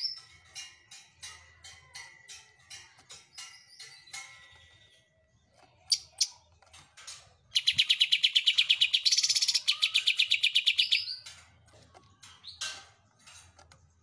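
Caged greater green leafbird (cucak ijo) singing: a run of short, sharp chirps, then a loud rapid rattling trill of about nine notes a second lasting about three and a half seconds, then more short notes. Its song is filled out with mimicry of the kapas tembak bird.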